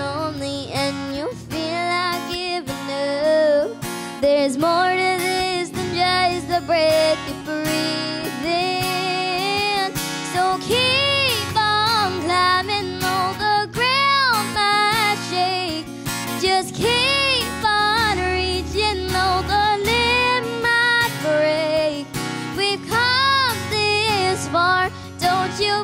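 A young girl singing a country song over a strummed acoustic guitar, her held notes bending and wavering.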